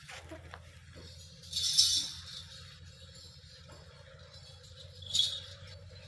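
Two short metallic jingles, a louder one about two seconds in and a shorter one near the end, over a steady low hum: the metal anklets on a goat's legs jingling as it shifts.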